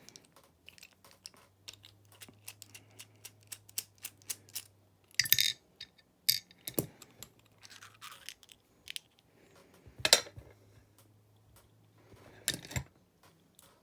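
Small metal clicks and taps from tools and padlock parts being handled as a Lockwood padlock is taken apart, with four louder clatters.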